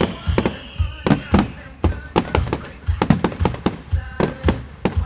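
Fireworks display: a rapid, irregular barrage of sharp bangs and deep booms, with a falling whistle dying away in the first second.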